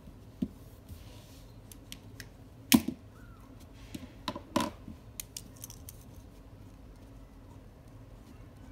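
Stationery handled on a desk: a highlighter and pen picked up and set down, giving a sharp knock about three seconds in and a few quick clicks a second or so later, then only faint ticks.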